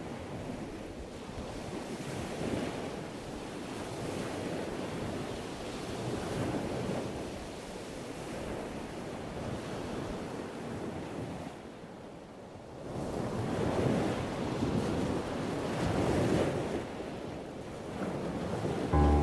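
Ocean waves washing in and out, a rushing noise that swells and fades every few seconds, with a brief lull about twelve seconds in.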